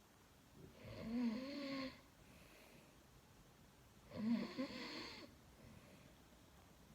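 A man snoring in his sleep: two snores about three seconds apart, each lasting about a second.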